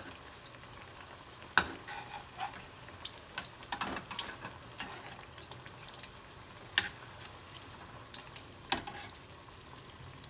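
Chana dal vadas sizzling steadily as they deep-fry in hot mustard oil in a kadhai. A flat metal spatula turns them over, clinking sharply against the pan three times, with lighter scrapes in between.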